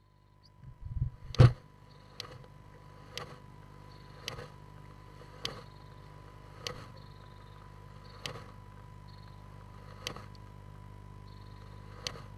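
Female great tit's defensive threat display inside a nest box: about nine sharp, short hiss-snaps, one every second or two, made as she defends her eggs. The first and loudest comes about a second and a half in, after a couple of low thuds. A steady low hum and a thin whine run underneath.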